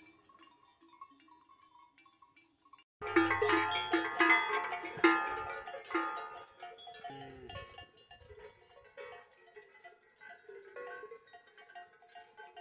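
Bells on grazing cattle clanging. The ringing starts suddenly and loud about three seconds in, with strikes about twice a second, then thins to scattered, quieter ringing.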